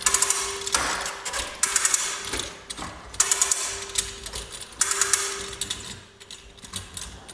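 Spring-driven Cox cord reel drum turning in spurts, its ratchet clicking rapidly in short bursts about every second and a half.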